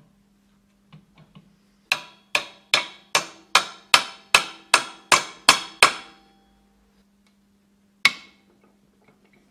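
A run of eleven sharp metal-on-metal strikes, evenly spaced at about two and a half a second, each ringing briefly, then a single further strike about two seconds later.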